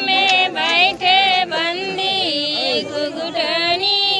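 Women singing in long, wavering held notes that glide between pitches.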